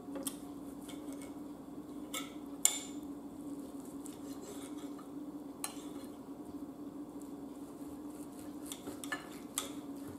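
A knife scraping and clicking against a plate as a thin-cut ribeye steak is cut, steadied with a chopstick. There are a few sharp clicks spread through, the loudest a little under three seconds in, over a steady low hum.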